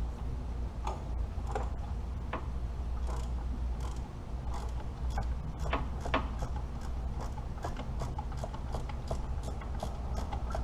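Ratchet wrench clicking as a fastener is turned, in short runs of clicks that settle into a steady few per second, over a steady low hum.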